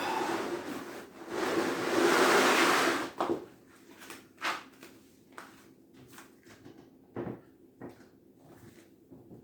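Household things being slid and dragged across the floor while space is cleared: two scraping slides in the first three seconds, the second one longer and louder, then a series of light knocks and bumps.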